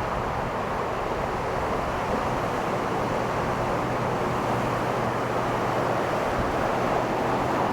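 Ocean surf washing on the beach, a steady rushing with wind buffeting the microphone.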